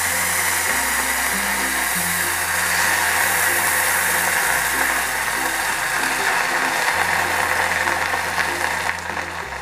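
Hot cooked beans and their broth sizzling and bubbling in a pot of hot oil with browned garlic as they are spooned in. The steady hiss eases a little near the end. Background music with a low bass line plays underneath.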